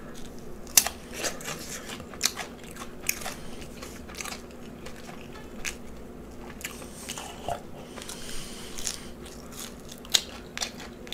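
Close-miked chewing and biting, with irregular sharp crunchy clicks.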